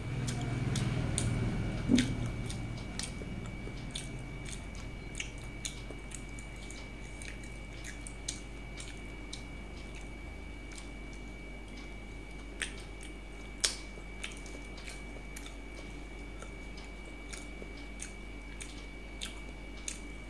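Close-up chewing and mouth sounds of a person eating rice and curry with her fingers, with scattered sharp clicks and taps throughout. The eating sounds are fuller in the first couple of seconds, and a loud click comes about two seconds in.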